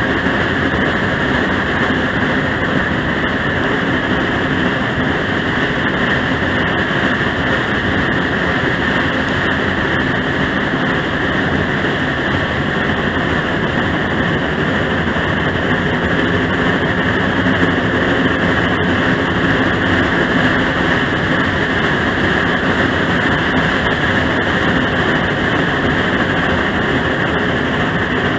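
Steady, loud running noise of a steam train under way, heard from just behind the locomotive: the engine working and wheels on the rails, with no separate beats standing out.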